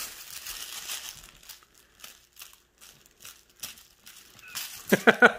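A plush toy rustling and crinkling as a puppy tugs at it and mouths it, in faint scattered rustles and ticks; a short voice is heard near the end.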